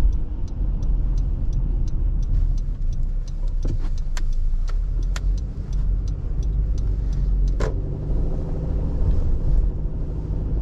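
A road vehicle on the move: a steady low rumble of engine and road noise, with faint light ticks and rattles scattered through it and a few sharper clicks.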